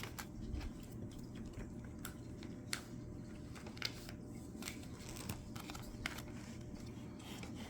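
Trading cards being handled and flipped through one at a time: faint scattered clicks and slides, roughly one a second, over a low steady room hum.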